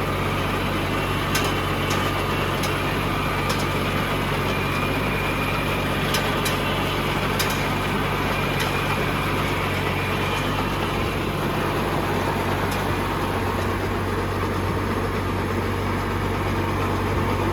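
Tractor engine running steadily, driving a Siromer P10 round baler through its PTO as the baler takes in grass. A few sharp clicks come from the machinery in the first half.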